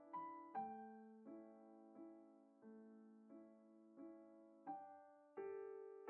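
Quiet background piano music: slow single notes struck about every 0.7 seconds, each ringing and fading, a little louder near the end.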